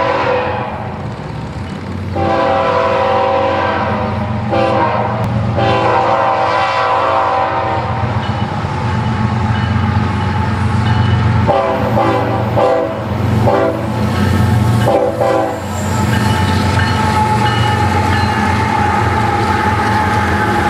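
Diesel freight locomotives sounding their air horn for the grade crossing, a run of long blasts and then several shorter ones, over a steady diesel engine rumble. From about three-quarters of the way through the horn stops and the cars roll by with a steady rumble and clatter.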